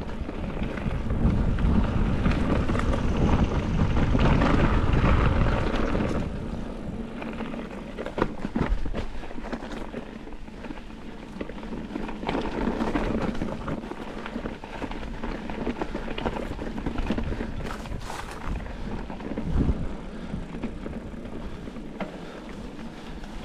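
Rock Machine Whizz 50 full-suspension mountain bike ridden down a dirt trail: tyres rolling over dirt and stones, with scattered knocks and rattles from the bike. The rumble is louder for the first six seconds or so.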